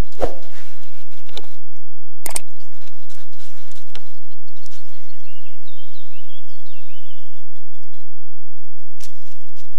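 Knocks and scuffs against the trail camera as a deer noses right up to it, with one sharp knock a little over two seconds in. Then a songbird sings several short phrases of falling notes.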